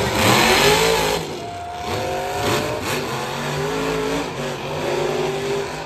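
Monster truck engine revving hard, its pitch rising and falling, loudest in about the first second.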